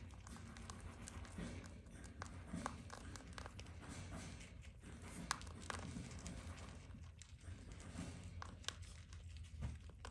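Faint rustling and crinkling of dry hay with scattered small clicks, as baby rabbits move through it and nibble the strands, over a low steady hum.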